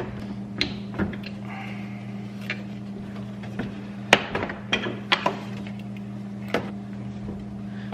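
Scattered plastic clicks and knocks from handling a Toyota Sienna headlight assembly and twisting its bulb sockets out of the housing, over a steady low hum.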